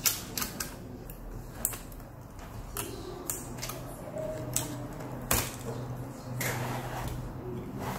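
Scattered sharp clicks and taps of an HP EliteBook 840 G2 laptop's motherboard, heatsink and plastic case parts being handled and worked loose with a small screwdriver, the loudest knock a little past five seconds in, over a steady low hum.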